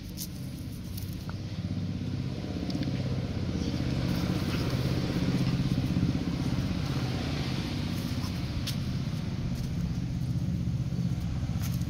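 An engine running steadily with a low hum, a little louder after the first few seconds, with a few faint clicks.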